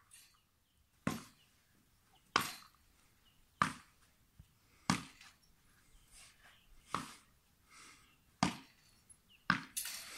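A tennis ball struck back and forth with paddles in a rally: a run of sharp knocks, about one every second and a bit.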